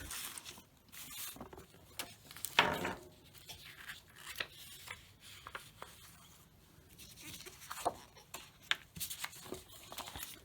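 A brown paper envelope and plastic transparency sheets being handled, with scattered rustles and taps, the loudest about two and a half seconds in.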